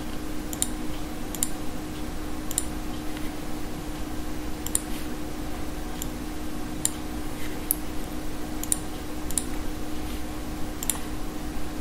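Computer mouse clicking, about nine separate clicks at irregular intervals, over a steady low electrical hum.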